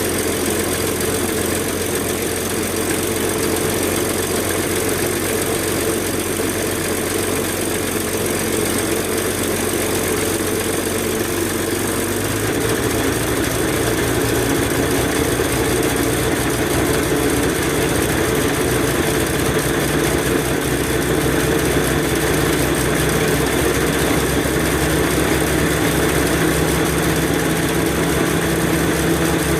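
Onan 30EK natural-gas generator engine running steadily. About twelve seconds in, its low hum shifts slightly higher and a little louder.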